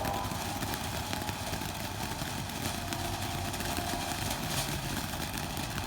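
Small consumer firework fountain burning, a steady hiss as it sprays sparks, with a few faint crackles.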